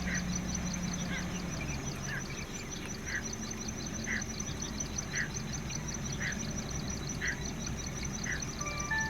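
Male greater painted-snipe giving short warning calls, repeated evenly about once a second. A steady high, rapid ticking runs underneath.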